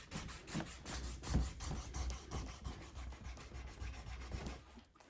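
Hand rubbing and working the leather seat of a saddle, quick repeated strokes that stop shortly before the end.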